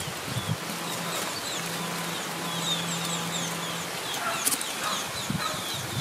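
Outdoor field ambience: many short, high chirps repeating throughout, with a steady low hum for the first few seconds and a few sharp clicks near the end.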